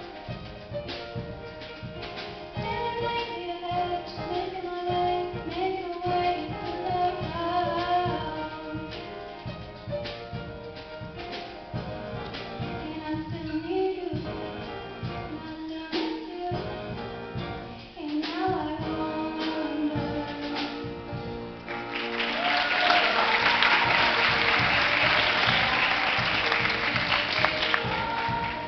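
Female choir singing with a solo voice at the microphone leading, over instrumental accompaniment with a steady beat. In the last several seconds audience applause breaks out loudly over the music.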